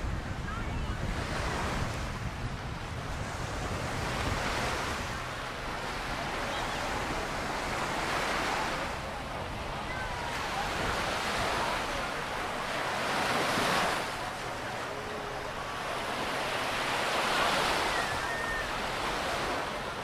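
Ocean surf breaking and washing up the beach, swelling and fading every three to four seconds. Wind rumbles on the microphone, most in the first few seconds.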